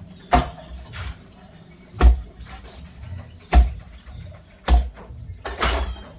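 Knife chopping a lukanani fish into pieces on a cutting board: five heavy chops, roughly one every second and a half.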